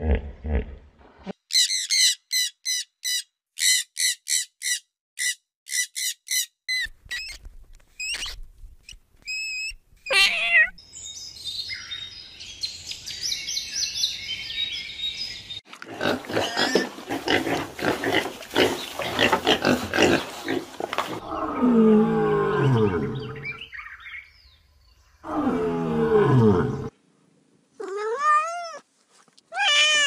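A series of different animal calls, one after another. It opens with a short low call, then comes a run of rapid, evenly spaced high chirps, a stretch of squealing about halfway through, and falling calls. Near the end a cat meows with rising calls.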